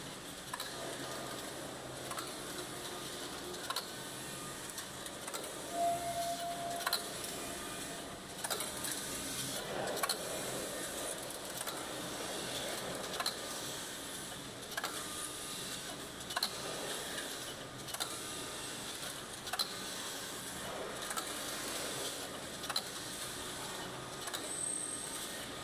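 Computerized flat knitting machine for collars running, its carriage travelling along the needle bed with a steady mechanical whir and many irregular sharp clicks.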